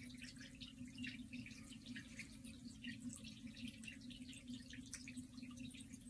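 Potter's wheel running with a faint steady hum, while a wooden pottery tool cuts ripple designs into the wet clay of the spinning pot, giving scattered faint wet ticks and clicks.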